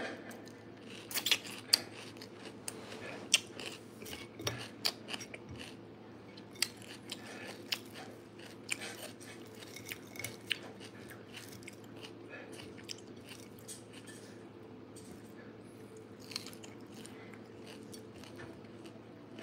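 A person chewing and eating fish by hand from a plate: scattered small crunches and mouth clicks, more frequent in the first half and sparser later.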